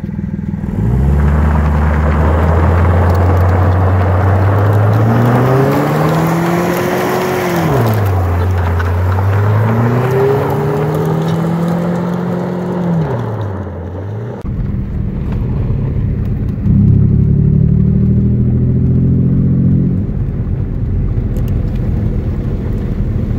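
Car engine revving hard as the car drives off on loose gravel, with heavy tyre and gravel noise. The revs climb, drop sharply and climb again twice. After a pause there is another stretch of hard acceleration with the revs stepping up.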